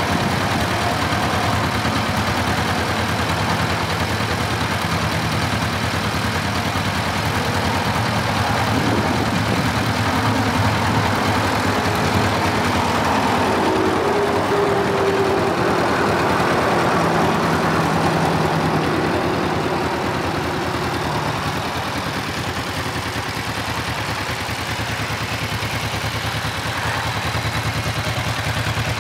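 2006 Kawasaki Vulcan 500's parallel-twin engine idling steadily through its stock exhaust.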